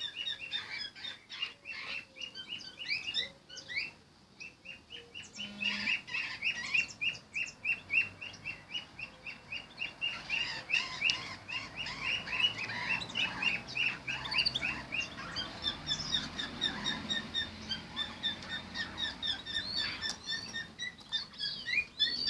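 Small cage birds chirping: scattered calls at first, then a long series of evenly repeated short chirps, about three a second.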